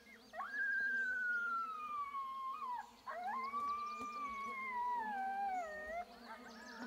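MFK electronic game call playing its "Group Answer" coyote sound: two long coyote howls, each sliding slowly down in pitch, the second rising before it falls, with fainter, higher calls behind them.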